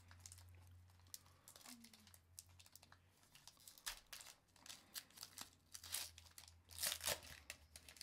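Foil Pokémon card booster pack wrapper being torn open and crinkled by hand: a run of irregular crackles and rips, loudest near the end as the pack is pulled apart, over a faint steady low hum.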